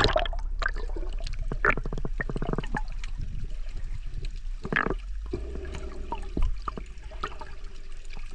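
Water gurgling and splashing close to the microphone, with a run of quick clicks and bubbling sounds about two seconds in.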